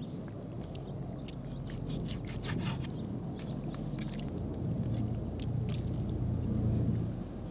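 Raw octopus being rubbed and handled on a wooden cutting board: wet scraping and squelching with scattered small clicks over a steady low rumble, a little louder near the end.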